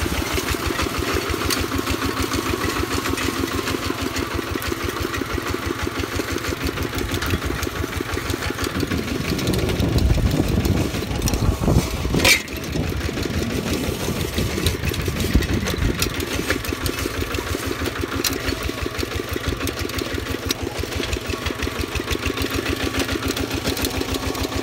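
Single-cylinder diesel engine of a two-wheel walking tractor running steadily with an even, fast putting beat while it pulls a disc plough through the soil. The sound grows louder and deeper for several seconds in the middle, with one sharp knock about halfway through.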